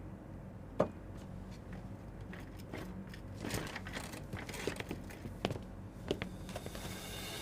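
Quiet room tone with a low hum, a sharp tap about a second in, then scattered light clicks and rustles, like small movements and handling in a room.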